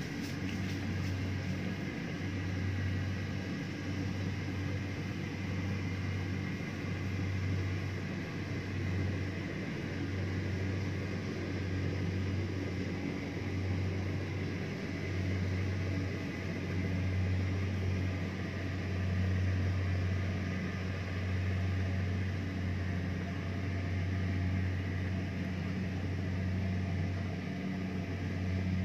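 Rice combine harvester running steadily, a low engine drone that swells and eases a little every few seconds.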